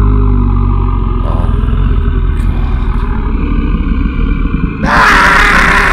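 A deep, rough, rumbling growl, then a loud scream-like cry breaks in about five seconds in, as of a person turning into a monster.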